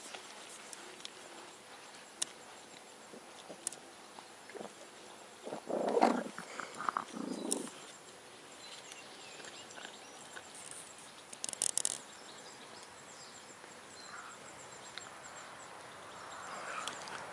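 Dog growling in a short, rough snarl lasting about two seconds, starting around six seconds in. A brief clicking clatter follows near twelve seconds.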